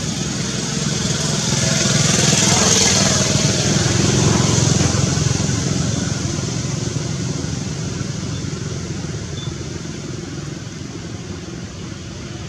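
A motor vehicle's engine drone that grows louder about two seconds in and then slowly fades away, as a vehicle passing by.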